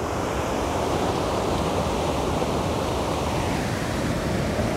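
Fast-flowing stream water rushing steadily, a dense, even wash of water noise.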